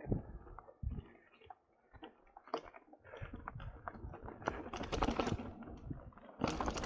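Mountain bike rolling down a dirt singletrack: irregular clicks, knocks and rattles from the bike over bumps, with tyres crunching over dirt and gravel, getting louder and busier from about three seconds in.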